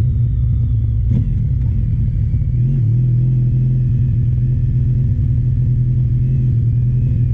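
Honda ST1300's V4 engine running steadily as the motorcycle rolls slowly, with a low rumble. The engine note steps up slightly a little under three seconds in.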